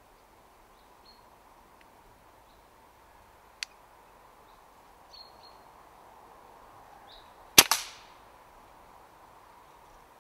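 A Brocock Pathfinder PCP air rifle fires a single shot about seven and a half seconds in: a sharp crack, with a second crack a split second later.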